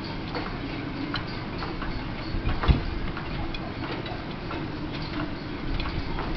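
Sailboat halyards and rigging clinking against aluminium masts: irregular light ticks over a steady low hum, with one heavier knock about two and a half seconds in.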